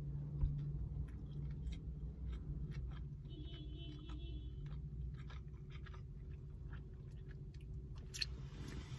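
A person chewing a mouthful of sushi close to the microphone, with many small wet clicks and smacks, over a steady low hum.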